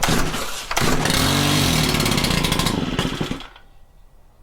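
Stihl FC91 edger's small 4-MIX engine starting with a pull of the cord, running for about two and a half seconds and then dying away. It is running on straight gasoline without oil mixed in.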